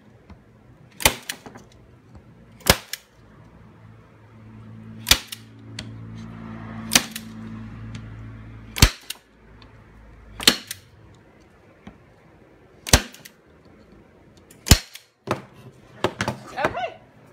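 Manual hand-squeeze staple gun driving 5/8-inch staples into wood, eight sharp snaps spaced about one and a half to two and a half seconds apart.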